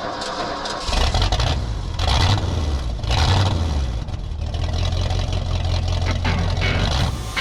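An engine running and revving, a deep rumble that starts about a second in and surges a few times.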